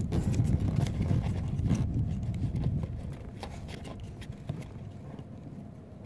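Hands rubbing and knocking against the phone's microphone while a plastic electrical connector is worked loose, with a few light clicks and scrapes. The rubbing fades out about halfway through.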